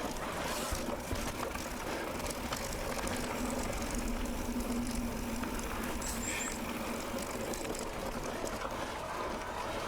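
Mountain bike riding on a dirt forest road: a steady rolling noise from the tyres and the bike.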